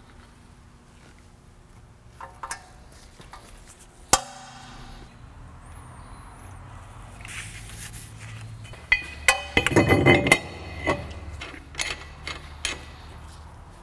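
Metal brake parts clinking as they are handled, with one sharp ringing clink about four seconds in. Later comes a hiss of aerosol cleaner sprayed on a brake rotor, and around ten seconds in a loud run of clanks with the rotor's metal ringing.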